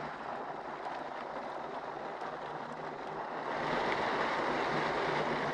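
Shallow river water rushing and splashing around a wading man's legs, a steady hiss that grows louder about three and a half seconds in.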